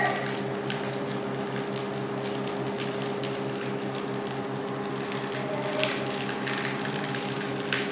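A steady electrical appliance hum, several low tones held level. A few faint sharp clicks of a knife cutting green chili over a bowl come through it.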